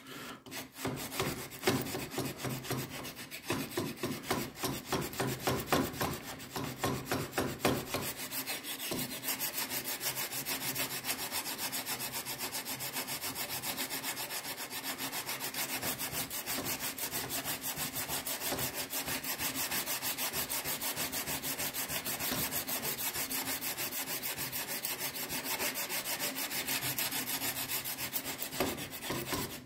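A 400-grit CBN plate in a handheld holder rubbed dry back and forth along a knife blade: a rhythmic rasping scrape as the blade is hand-finished after its machine grind. The strokes are heavier and further apart for about the first eight seconds, then quicker and even.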